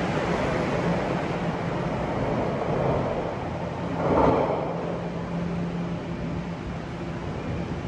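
Bombardier Toronto Rocket subway train pulling out and running off into the tunnel, its running noise slowly fading as it recedes, with one brief louder burst of noise about four seconds in.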